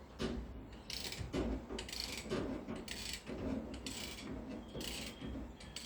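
Ratcheting hand tool worked in repeated short strokes, about two a second.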